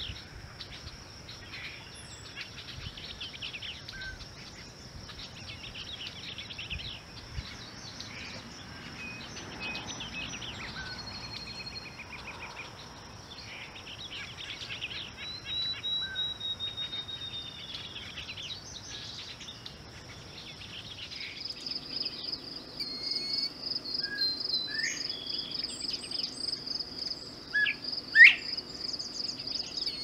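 Brown thrasher singing a string of varied phrases over a steady high insect trill. About two-thirds of the way through, a louder, pulsing insect chirp takes over, with scattered calls from other birds.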